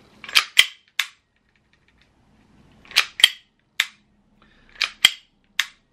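SIG Sauer P320 M18 airsoft gas-blowback pistol being worked empty: sharp metallic clicks and clacks from racking the slide and pulling the trigger, nine in three groups of three. It is single action only, so the slide has to be racked again to recock it before each trigger pull.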